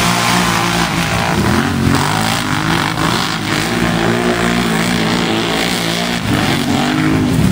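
Two quad ATV engines racing through a mud course, revving up and down repeatedly as the riders work the throttle, over a rushing noise from the churned mud.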